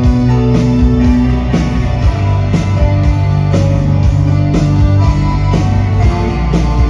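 Rock band playing an instrumental passage: guitar and bass over a steady drum beat, with a hit about every half second.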